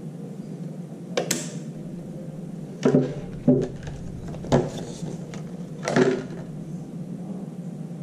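A handful of short, sharp clicks and knocks, about five spread over a few seconds, from hands handling a laptop-size memory module while fitting it into the NAS motherboard.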